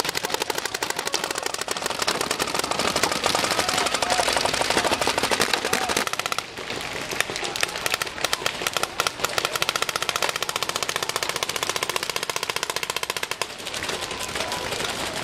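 Many paintball markers firing rapidly at once: a dense, continuous crackle of shots, briefly dipping about six seconds in.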